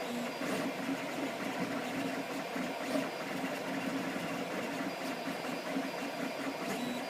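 Desktop 3D printer's stepper motors whirring as the print head moves through a print, a hum that starts and stops in short runs. The printer is printing normally at this point.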